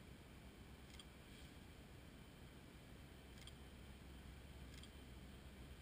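Near silence: a faint low rumble from the diesel locomotives of a distant freight train led by an EMD SD70ACe, growing slightly as it approaches. A few faint short ticks sound over it.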